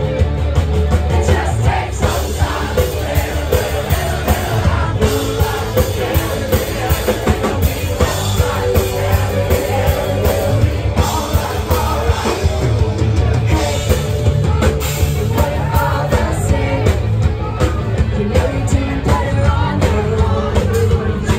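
Live band playing loud in a club: a female lead vocalist singing over drums and electric guitar with a steady beat.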